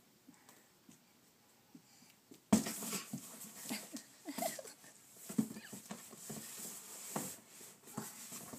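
A cardboard box knocking and rustling as a toddler tumbles headfirst into it, starting with a sudden loud knock about two and a half seconds in, followed by irregular scuffs and bumps and a few short voice sounds from the child.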